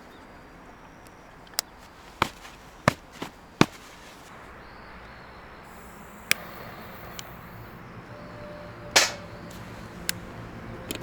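A series of sharp knocks, about nine at uneven intervals, over a faint hiss. One of the loudest comes about nine seconds in, and a low steady hum rises underneath near the end.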